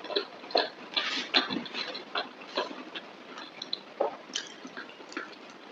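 Close-up chewing and wet lip-smacking of someone eating curry and rice: short irregular smacks and clicks, a few each second.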